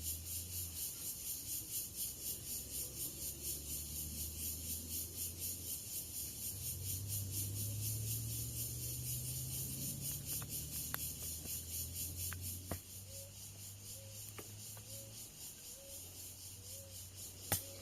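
Insects chirping in a steady, fast-pulsing high chorus over a low hum, with a soft short call repeating about once a second in the second half.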